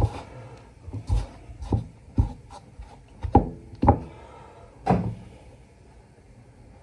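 Chicken pieces being tossed in flour in a ceramic bowl on a wooden board: a string of knocks and thumps as the pieces and the bowl knock about, a few with a short ring, stopping about five seconds in.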